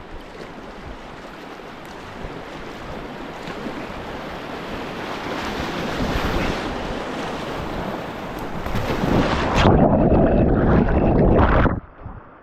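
Rushing whitewater of a river rapid, with wind buffeting the microphone. It grows steadily louder, stays loudest for a few seconds, then drops off sharply near the end.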